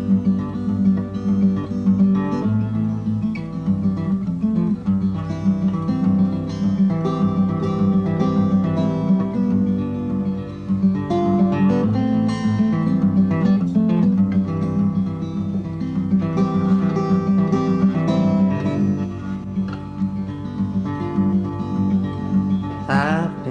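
Solo acoustic guitar playing an instrumental passage of a slow folk ballad: picked chords over a steady low bass note, with a brief rising sweep near the end.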